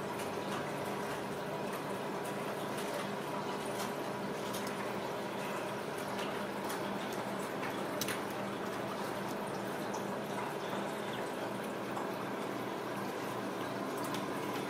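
Steady background hiss with a faint hum, broken by a few light clicks as a Ragdoll kitten's paws press the keys of a laptop keyboard; the sharpest click comes about eight seconds in.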